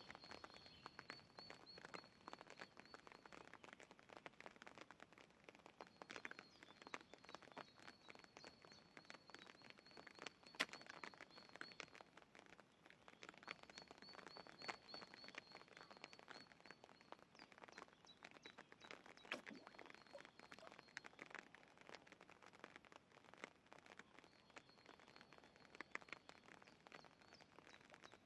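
Faint outdoor ambience: a thin, high, steady trill that sounds in stretches of a few seconds and breaks off several times, over scattered faint clicks and ticks.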